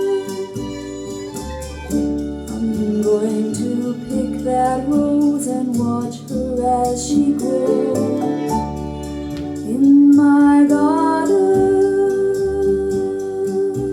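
A recorded song played on a Kuzma turntable through Martin Logan loudspeakers: a woman singing a slow melody over guitar and held bass notes.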